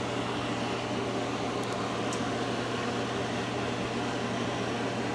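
Steady mechanical hum of a running household appliance or fan, an even drone with a low steady tone under it.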